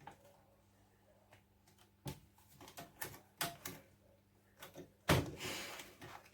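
A series of short clicks and knocks, like objects being handled, then a louder knock about five seconds in followed by about a second of rustling, over a faint steady hum.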